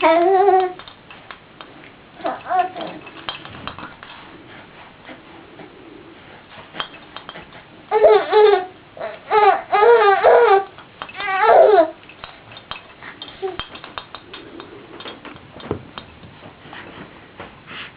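Baby cooing and babbling in short high-pitched calls, with a run of several calls in a row near the middle. Light clicks and knocks of plastic rattles being hit come and go throughout.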